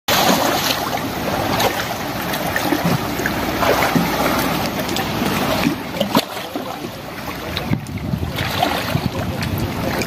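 Sea waves washing with wind: a steady rushing sound with a few faint clicks.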